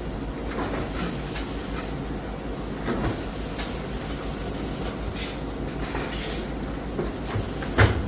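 Automatic bottle-capping machine running: a steady mechanical hum with irregular clacks and knocks, and one louder knock near the end.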